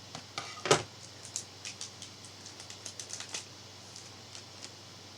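Foil wrapper of a Pokémon card booster pack being cut open and handled: a quick run of sharp crinkles and clicks, the loudest about three-quarters of a second in, dying away after about three and a half seconds.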